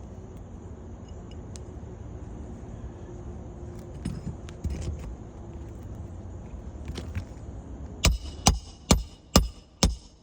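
Five sharp metallic strikes in quick succession, about two a second, near the end, like hammer blows on a roof, with a few lighter knocks earlier. A low steady rumble runs underneath.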